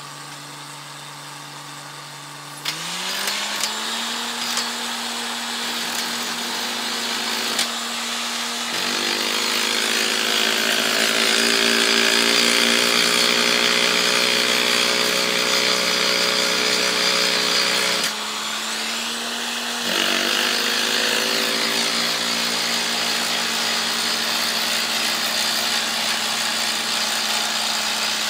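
Truck-mounted borewell drilling rig running: its engine speeds up with a rising whine about three seconds in, then runs steadily under load beneath a loud hissing rush of the compressed-air drilling, which blows cuttings and dust out of the bore. The sound dips briefly for a couple of seconds past the middle and then picks up again.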